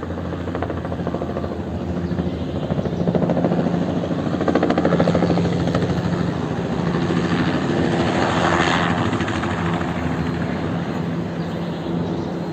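Helicopter flying low overhead, with a steady rapid beat from its rotor blades. The sound swells to its loudest around the middle and then eases a little.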